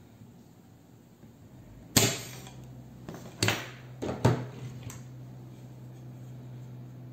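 Spring-loaded desoldering pump snapping as it fires to suck melted solder off the blender's circuit board: three sharp snaps within about two and a half seconds, the first the loudest. A low steady hum starts with the first snap and runs on under them.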